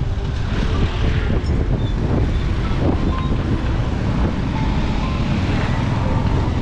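A vehicle running steadily, with wind buffeting the microphone, heard while riding along.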